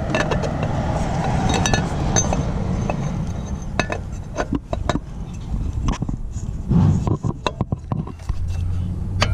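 Irregular clinks, knocks and scrapes of a CTS turbo inlet pipe being pushed onto the turbo and twisted into place, over a steady low hum.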